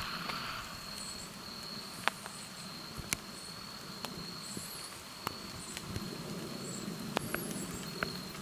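Insects in a grassy field trilling in a steady high drone, with faint short high chirps about once a second. About half a dozen sharp clicks stand out over it.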